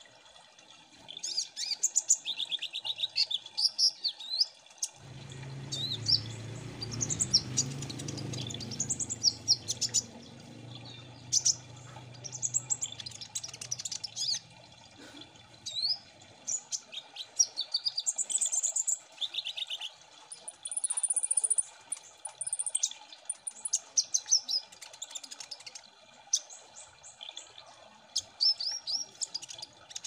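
A group of kolibri ninja sunbirds singing together: rapid, high-pitched chirps and trills, often overlapping. A low rumble runs underneath from about five to sixteen seconds in.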